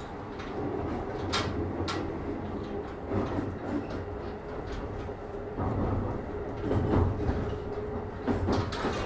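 Keikyu 1000 series (1890 subseries) electric train running, heard from inside the car: a steady rumble of wheels on rail with a level motor hum, and a few sharp clicks from the track.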